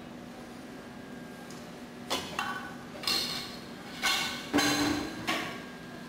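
Metal kitchenware clattering: about six sharp, ringing clinks and knocks in the second half, as pans and utensils are handled on a steel worktop and gas range, over a steady hum.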